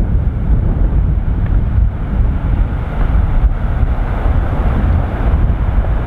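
Wind buffeting the microphone: a steady, loud low rumble that flutters rapidly, with no distinct crack or splash.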